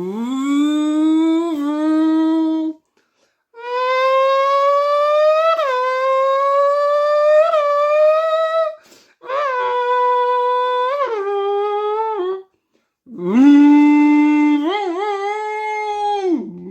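A person imitating racing-car engines with his voice: four long buzzing engine notes with short gaps between them, each rising in pitch as if revving, with brief dips in pitch along the way.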